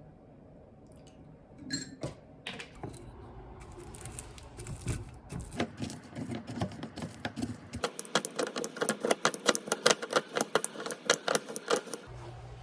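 A few scattered clinks and knocks, then fast, even clicking at about five a second for the last four seconds, like a kitchen utensil tapping quickly against a bowl.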